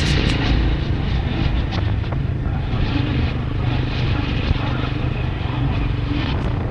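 Steady rain hiss over a continuous low rumbling hum, with scattered sharp taps.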